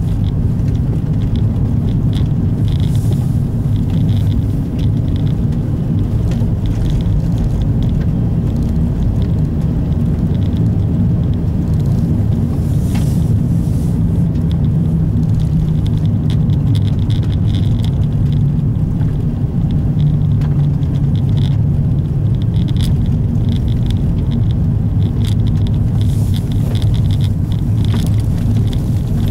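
Opel Astra Coupé being driven along a snow-covered road, heard from inside the cabin. Engine and road noise make a steady low drone, with an uneven hiss from the tyres rising and falling over it.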